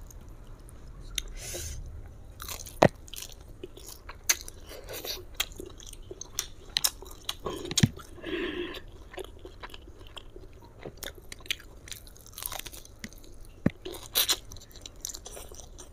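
Close-miked chewing and crunching of fried chicken, heard as many short, irregular clicks and crunches.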